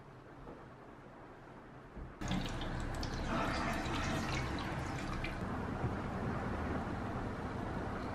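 Tap water running into a plastic cup, starting abruptly about two seconds in and running steadily.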